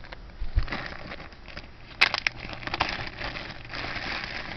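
Small plastic jewelry bags crinkling and rustling as pieces are handled, with a sharp click about two seconds in.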